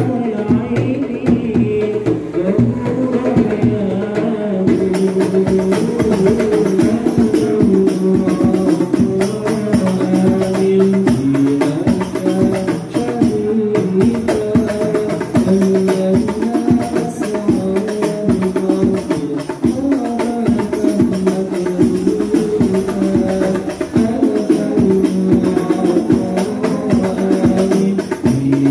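Hadroh ensemble playing: a male voice sings sholawat into a microphone over a steady beat of rebana frame drums and a large bass drum. About five seconds in, the drumming turns brighter with sharper high hits.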